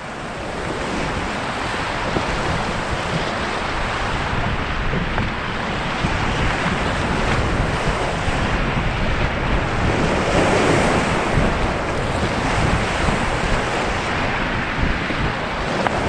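White-water rapids of the Ganges rushing and churning around an inflatable raft, a loud, steady wash of water noise with wind rumbling on the camera's microphone.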